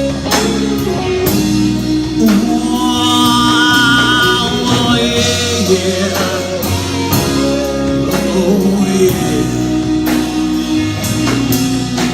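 Live rock band playing an instrumental passage between sung lines: drum kit and bass with guitars, and a held, wavering lead melody through the middle.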